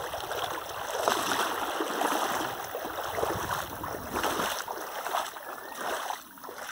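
Footsteps wading through shallow river water, splashing and sloshing in uneven surges; the splashing stops about six seconds in.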